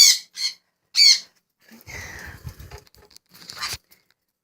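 Two sharp, shrill pet parrot squawks, one at the very start and another about a second in, followed by a stretch of rustling handling noise.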